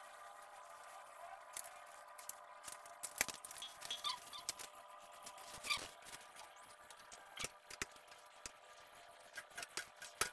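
Faint scattered squeaks and light clicks as a rubber spud gasket is pressed into the inlet hole of a ceramic urinal bowl with a screwdriver.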